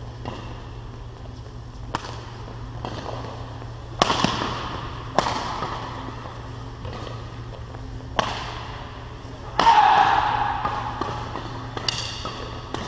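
Badminton rackets striking the shuttlecock hard in a fast doubles rally: a string of sharp cracks, uneven and a second or more apart, each echoing through a large hall. A longer, louder burst comes about ten seconds in.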